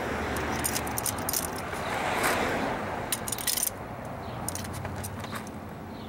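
Metal hand tools clinking and rattling in the spark-plug wells of a VW 2.0 TSI engine as a socket and extension are worked onto the plugs, in irregular clusters of sharp clicks. A brief rustling rush sounds about two seconds in.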